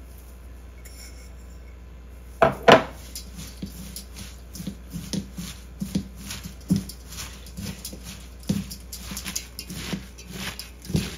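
Hands tossing and squeezing salted chopped napa cabbage in a stainless-steel colander, making irregular crunching and rustling with dull knocks of the colander. It starts about two seconds in with two sharp, loud knocks.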